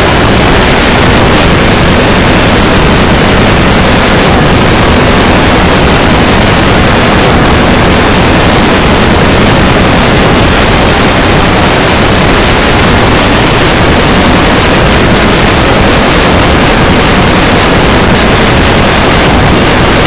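Canadian emergency alert tone so heavily distorted and clipped that it becomes a steady, very loud wall of harsh static-like noise, with no clear pitch left.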